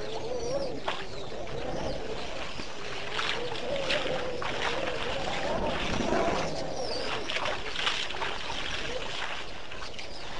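Elephants splashing and sloshing water at a waterhole, with a few short bird calls and a steady wavering drone underneath.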